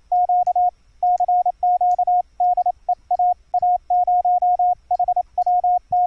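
Morse code sidetone from a 555 square-wave oscillator, cleaned up by a HI-PER-MITE active CW bandpass filter. A single clean tone is keyed in quick dits and dahs, with no harsh harmonics or key clicks.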